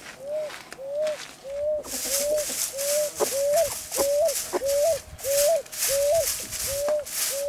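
Broom sweeping bare dirt ground in short scratchy strokes, a little over two a second, starting about two seconds in. Under it a bird repeats one short note over and over, about two and a half times a second.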